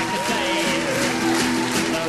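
Music with guitar and steady held notes; a melody line wavers up and down in pitch during the first second.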